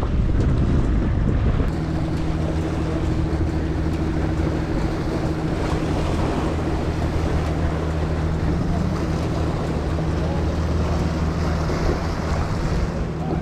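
Small waves washing and splashing against jetty rocks, with wind buffeting the microphone. A steady low hum, typical of a boat engine, sets in about two seconds in.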